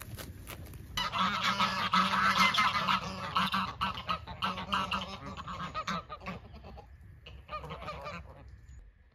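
A flock of domestic geese honking loudly in a chorus of overlapping calls, starting about a second in and dying down after a few seconds, with one shorter burst of calls near the end.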